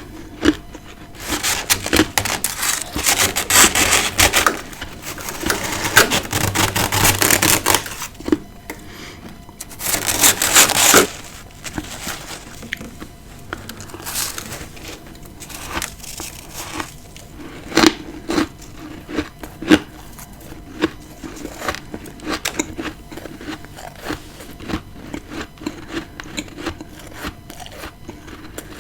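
Close-up chewing of powdery humidifier freezer frost: dense crunching for the first several seconds and again briefly about ten seconds in, then softer, scattered crunches.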